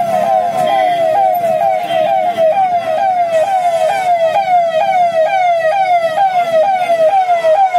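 Electronic vehicle siren on a fast yelp: a short rising wail that snaps back down, repeating about three times a second.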